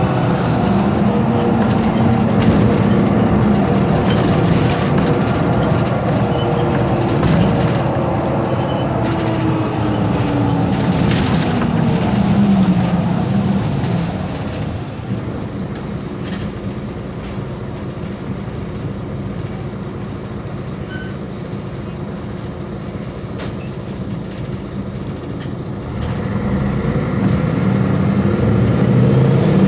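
Mercedes-Benz Conecto G bus's OM457LA diesel engine and driveline under way: a pulling drone with a whine that rises and then falls in pitch during the first dozen seconds as the bus slows. It then runs quieter and steadier for about twelve seconds, and pulls louder again near the end.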